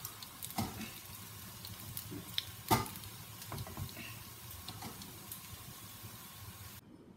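Ghee sizzling in a kuzhi paniyaram pan as the cooked paniyarams are lifted out, with sharp clicks and knocks against the pan, the loudest about two and a half seconds in. The sizzle cuts off suddenly near the end.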